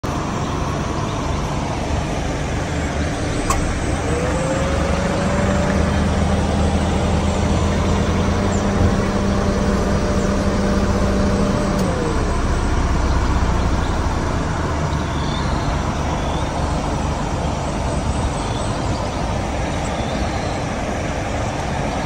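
Road vehicle running, with a steady road-and-engine rumble. A whine rises about four seconds in, holds level and falls away near the middle.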